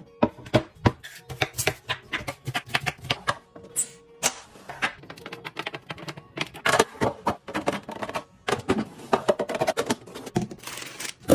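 Rapid, irregular light clicks and knocks, several a second, of hard objects being handled and set down, as in stocking and arranging a fridge.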